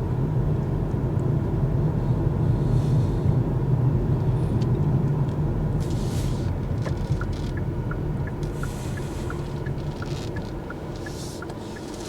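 Tyre and road noise heard inside the cabin of a Kia EV6 electric car driving on a worn road surface: a steady low rumble with no engine note. From about seven seconds in, a faint, even ticking of two or three clicks a second runs under it.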